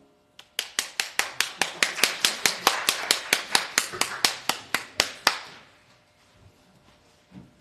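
Hand clapping, with one set of sharp claps close by standing out over fainter clapping, about four claps a second for about five seconds, then stopping. A soft low thump comes near the end.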